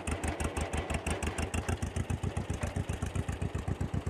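Two-cylinder engine of a vintage John Deere tractor idling, with a fast, even popping beat of about ten pulses a second.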